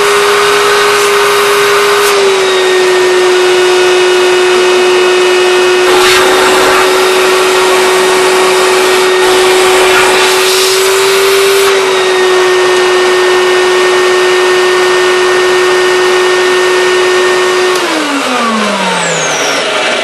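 Red canister vacuum cleaner running with a steady motor whine, its pitch stepping slightly twice, with brief louder hissing rushes of air. Near the end it is switched off and the motor winds down, the whine falling in pitch.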